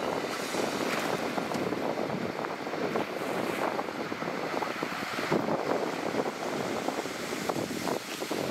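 Diesel engine of construction machinery running steadily, with wind buffeting the microphone.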